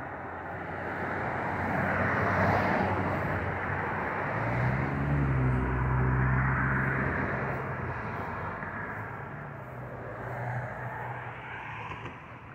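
Engine noise from a passing motor vehicle: a low hum swells up a little before the middle and fades away, over a wash of road and outdoor noise.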